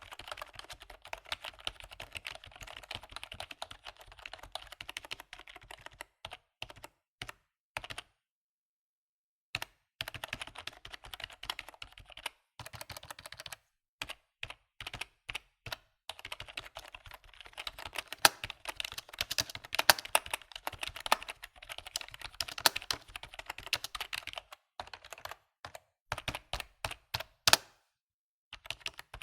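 Typing on a computer keyboard: fast runs of keystroke clicks broken by short pauses, with a silent stop of about two seconds roughly a third of the way in and another just before the end.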